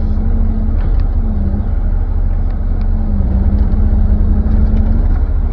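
Kubota KX040-4 mini excavator's diesel engine running steadily under a low rumble, its pitch dipping briefly twice as the machine works.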